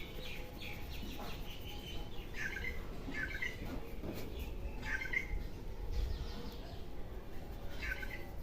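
Small birds chirping: short calls every second or two over a low background rumble.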